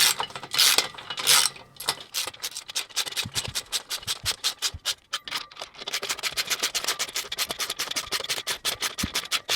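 Ratchet pawl clicking as M8 screws are cranked tight on a metal kayak rack. A few slower strokes come first, then rapid, even clicking for most of the time.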